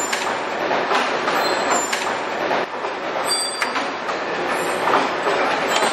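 Face-mask production machinery running: a steady mechanical clatter broken by sharp clicks about once a second, with brief high thin tones now and then.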